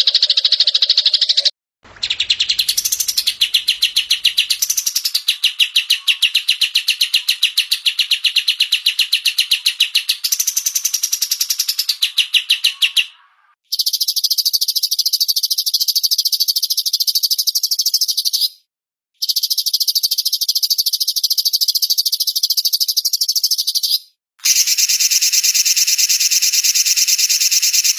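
Songbird song from a bird-song training recording: long bouts of a very fast, even, high-pitched trill, broken by short pauses, with a couple of quick rising notes in the first long bout.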